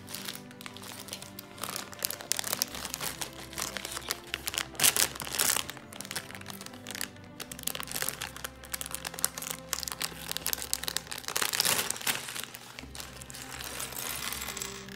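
Plastic Lego polybag crinkling and crackling as it is handled and pulled open, over background music.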